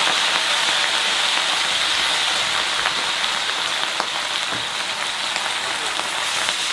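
Leafy greens just added to hot oil in an iron wok over a wood fire, sizzling loudly: a steady hiss that eases slightly toward the end.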